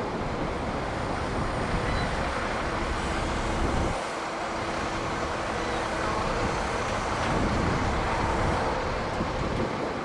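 Mobile crane's engine running steadily under load as it lifts a steel lattice tower, with wind rumbling on the microphone that eases about four seconds in.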